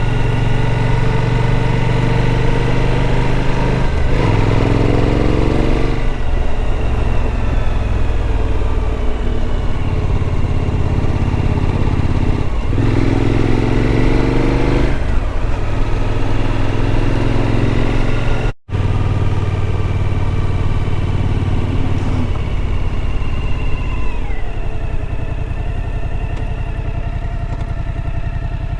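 Suzuki V-Strom motorcycle engine running while riding at low speed. Its pitch rises twice as it pulls away through the gears and drops near the end as it slows. There is a momentary break in the sound a little past the middle.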